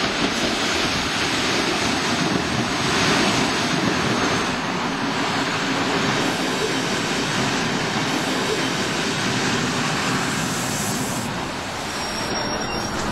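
Diesel railcar train, an old ALn 668-type unit, pulling in and running close past along the platform, its engine and wheels making a steady dense rumble.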